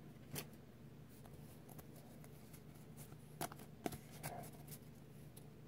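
A stack of Pokémon trading cards handled and slid against one another: faint rustling with a few light clicks as the cards are flicked and squared, the clearest about half a second in and twice more around the middle.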